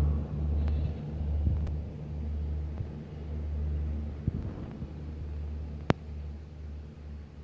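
Passenger train's coaches rolling away along the track, a low rumble that fades as the train recedes. A single sharp click comes about six seconds in.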